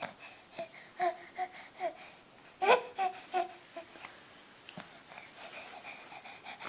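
Infant babbling: a string of short, high-pitched voiced syllables, several to the second, that give way about four seconds in to softer breathy, hissy sounds.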